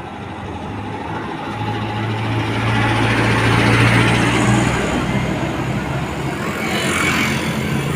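Large bus diesel engine running as it moves past, swelling to its loudest about halfway through and then easing off.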